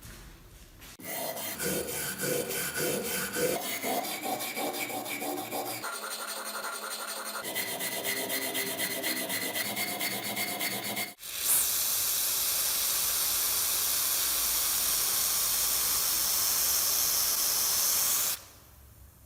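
Rhythmic metal-on-metal scraping strokes, as in filing or brushing rust off the hammer head, with a faint metallic ring, in several cut-together clips. Then a steady hiss from a spray or air jet runs for about seven seconds and stops abruptly.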